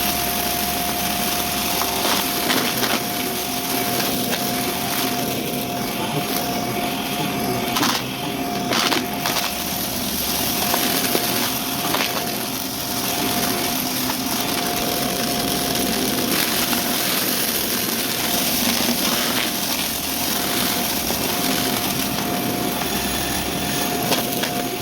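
Vacuum cleaner running with its brushroll spinning, a steady motor whine under a constant crunching and crackling as it sucks up dry debris, with scattered sharp clicks.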